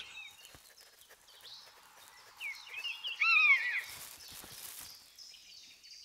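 Common buzzard giving a few short arched mewing calls about three seconds in, over a background of small birds chirping.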